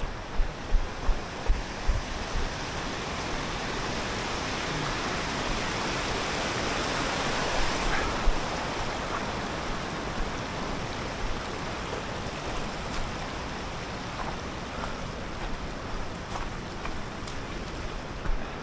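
Rushing mountain stream, swelling to its loudest about halfway through and then easing off. In the first couple of seconds a runner's footsteps thud on the gravel trail, about two and a half a second.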